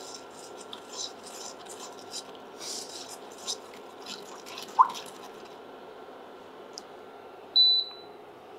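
Cumin seeds crackling in a little hot oil in a wok as a silicone spatula stirs them. The pops are scattered and thin out after about three and a half seconds. There is a brief squeak about halfway through, and near the end a short high beep, which is the loudest sound.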